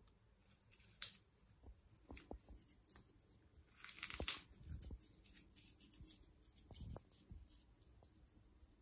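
Hands handling dry leaf litter, substrate and sphagnum moss: faint, scattered rustling and crinkling with small clicks, and a louder rustle about four seconds in.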